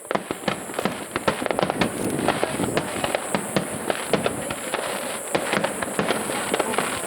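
Fireworks in a starmine barrage: a dense, unbroken run of sharp cracks and pops, many each second, with no pause.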